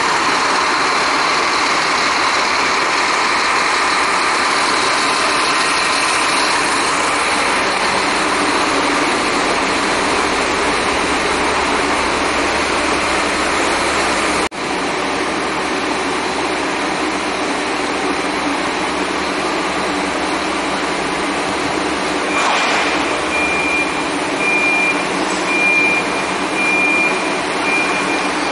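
Scania K340iB coach's diesel engine idling steadily. About two-thirds of the way through there is a short hiss of air, then a high electronic beep repeating about once a second.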